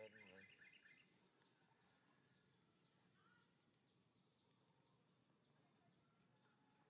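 Faint sounds: a baby monkey gives a brief squeaky chatter at the start, then a bird chirps over and over in short, falling high notes, about two or three a second.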